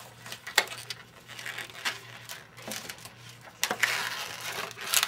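Latex twisting balloons being tied off and worked into place by hand, rubbing and crinkling against each other, with a few sharp snapping clicks.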